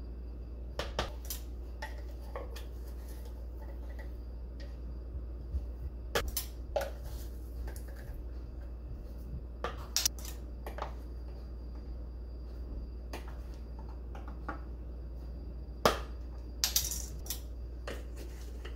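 Scattered clicks and knocks of spice jars, their plastic caps and a measuring spoon being handled on a stone countertop, the sharpest knock about sixteen seconds in, over a steady low hum.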